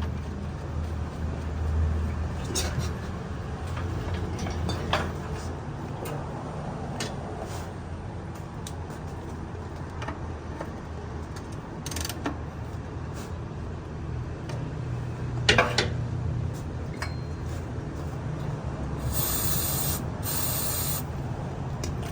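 Scattered clicks and knocks of tool work over a low steady hum, then two short hissing spray bursts of about a second each near the end.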